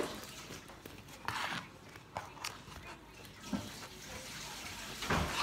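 Knife cutting through the crust of a round loaf of bread: a few separate scratchy crunches with pauses between, the last one near the end the loudest.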